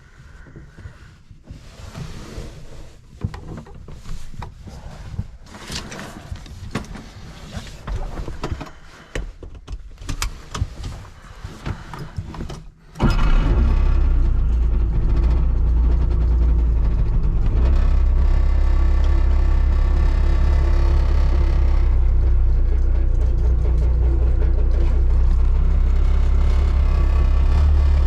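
A series of irregular clicks and knocks, then a little before halfway the Trabant 601S's air-cooled two-stroke two-cylinder 594cc engine starts abruptly and runs steadily at idle.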